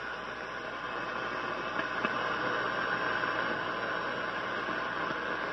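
Hallicrafters shortwave receiver hissing with static through its speaker as its tuning knob is turned between stations, with a couple of faint clicks about two seconds in.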